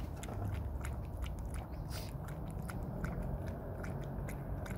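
A dog lapping water from a hand, a quick irregular run of wet tongue clicks, about three or four a second.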